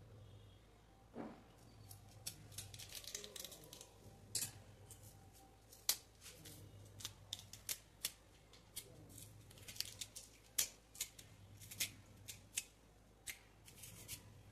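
Raw green banana being peeled: a knife scraping and cutting the thick skin, and strips of peel pulled and snapped off by hand, giving a string of short, crisp snaps and scrapes at irregular intervals.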